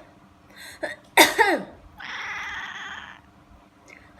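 A person coughs twice about a second in, and a domestic cat answers with an angry hiss lasting just over a second.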